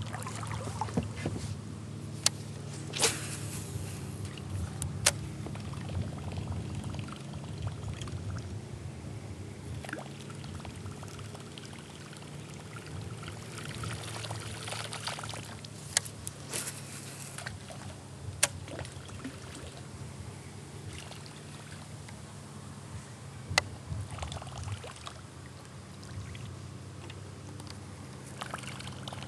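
Water lapping and gurgling against a kayak hull, with several sharp clicks and knocks scattered through.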